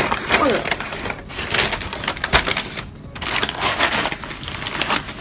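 White paper takeout bag crinkling and rustling as it is handled, a dense run of sharp crackles and clicks.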